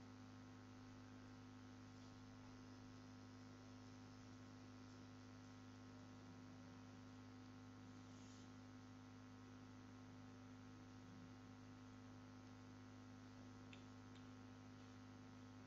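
Near silence with a steady electrical mains hum and a couple of faint ticks.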